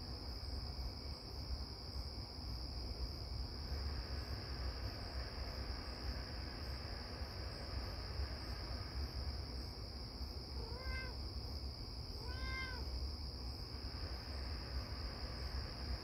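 Steady high-pitched chorus of crickets, with a low rumble underneath. About eleven seconds in, a cat meows twice, each a short call that rises and falls, under two seconds apart.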